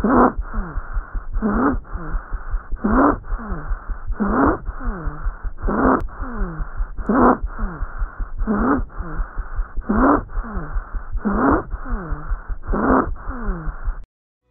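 Abnormal lung sounds heard through a stethoscope on chest auscultation. The sound repeats about every one and a half seconds, ten times, each one carrying a short tone that falls in pitch. It cuts off near the end.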